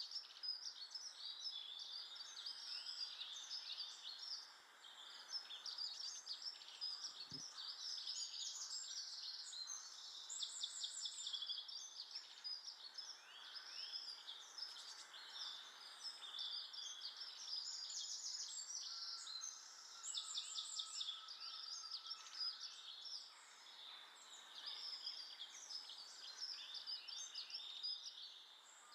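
Garden birds chirping and twittering without a break, many short calls and trills overlapping, with one soft low knock about seven seconds in.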